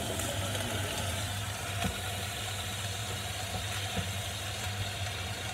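A pan of mince, peppers and chopped tomatoes simmering and sizzling on the hob over a steady low hum, with a couple of faint clicks.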